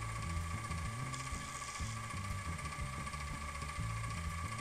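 Vertical milling machine running steadily with a steady whine as a 4 mm end mill bores a shallow socket into the stove burner body to seat a new stud.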